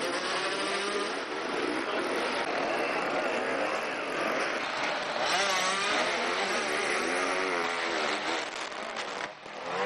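Dirt-bike engines revving hard under load, the pitch rising and falling repeatedly as the enduro motorcycles climb a muddy, rutted slope.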